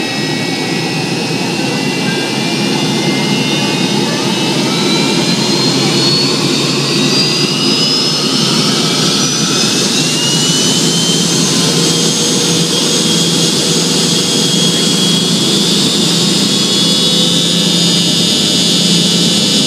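The two tail-mounted Pratt & Whitney JT8D turbofans of a McDonnell Douglas MD-88, heard from inside the rear cabin, spooling up to takeoff power as the jet accelerates down the runway. A whine climbs in pitch over the first half and then holds above steady, loud engine noise.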